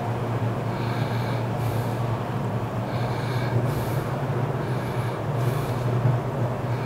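Fingers rubbing cold butter into flour in a stainless steel bowl, giving soft scratchy rustles every second or two, over a steady low hum.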